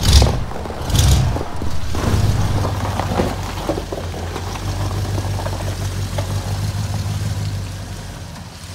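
1977 Chevrolet C10 pickup's engine surging twice briefly, then running steadily as the truck backs out of the garage. It quietens near the end.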